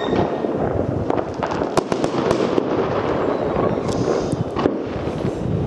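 Many fireworks going off: a steady background of distant bangs and crackling, with sharper, nearer bangs at irregular moments.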